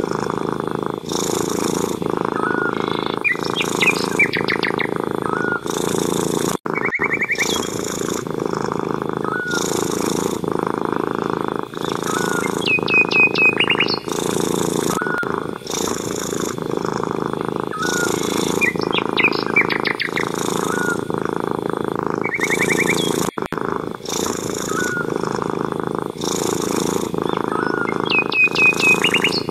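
Cat purring steadily in an even pulsing rhythm, with small birds chirping: short notes every couple of seconds and a few quick trills.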